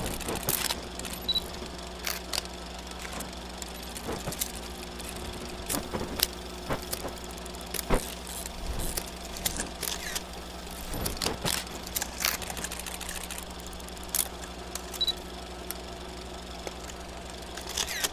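Old-film crackle sound effect: a steady low hum under irregular clicks and pops.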